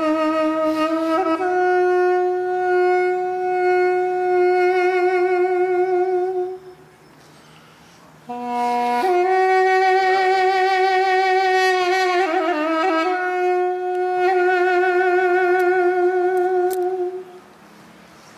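Duduk playing slow solo melody: long held notes with vibrato. The first note breaks off about seven seconds in. After a short pause a brief lower note leads into a second long held note, ornamented partway through, which stops about a second before the end.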